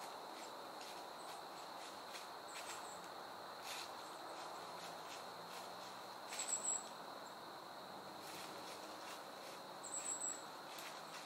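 Quiet woods ambience: a faint, steady high-pitched drone over a soft hiss, with two brief high chirps about six and ten seconds in and a few soft rustles.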